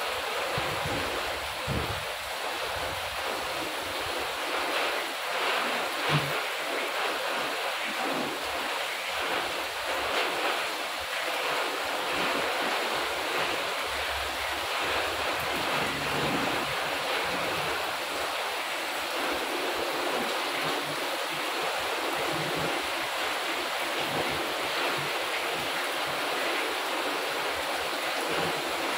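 Heavy rain pouring down steadily on pavement, garden plants and the porch roof, a dense even hiss of falling water. One brief louder hit stands out about six seconds in.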